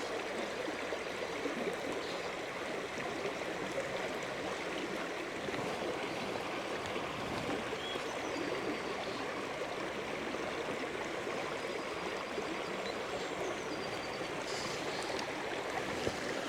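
Shallow, fast-flowing river water rushing steadily.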